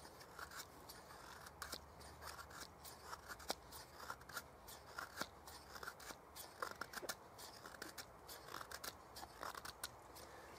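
Knife blade shaving thin curls down a split wooden stick while carving a feather stick: a run of short, faint scraping strokes, several a second, with brief pauses between runs.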